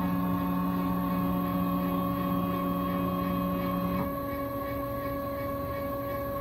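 CNC router running, its spindle and drive motors giving a steady whine made of several tones. The lowest tone drops out about four seconds in.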